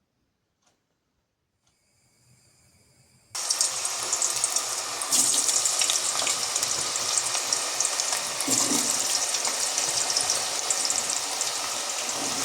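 Rushing water, such as a stream or small waterfall, starting abruptly about three seconds in after near silence and running steadily.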